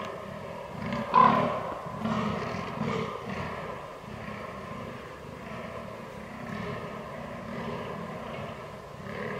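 Fallow deer buck groaning in the rut: a run of short, deep, belching grunts, about two a second, loudest about a second in.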